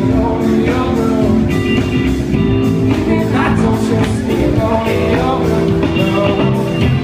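A live rock band playing loudly, with electric guitars, bass, keyboard and drums, and a woman singing over them.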